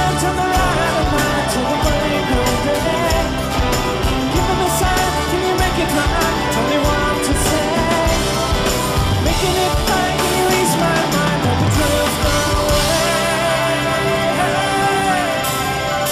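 Rock song with a steady beat, an instrumental stretch between its sung verses.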